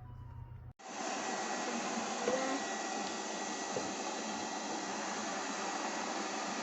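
Steady whooshing noise of a small electric motor moving air, starting suddenly just under a second in and holding even throughout, with a faint high whistle in it.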